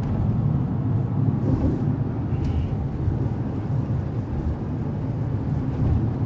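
Steady road and engine noise inside a car's cabin while driving at highway speed.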